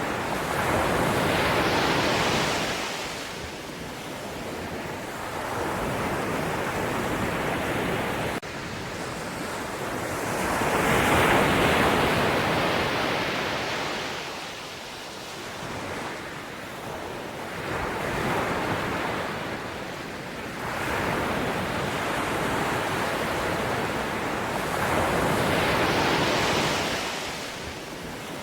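Ocean waves breaking and washing in, in slow surges that swell and fade every several seconds, four times over.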